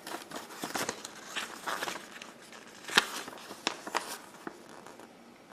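Paper rustling and soft clicks as the pages of a printed instruction manual are handled and turned, with one sharper tap about three seconds in.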